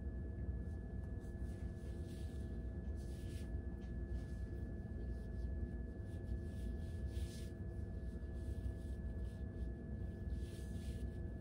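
Quiet room tone: a steady low hum with faint constant whining tones, and a few soft brief rustles.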